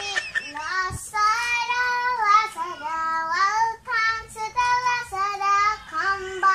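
A young girl singing a slow melody unaccompanied, holding each high note for up to a second and gliding between them.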